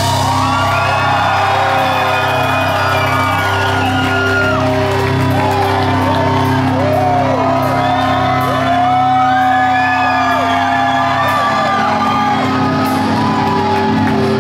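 Rock-club crowd shouting and whooping over a steady low drone held from the stage amplifiers.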